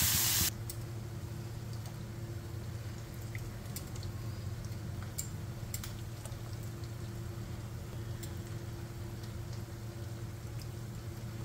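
Minced meat sizzling and being stirred in an iron kadai, cut off abruptly about half a second in. After that, a low steady hum with a few faint ticks and drips as a ladle of drumstick curry is lifted over its bowl.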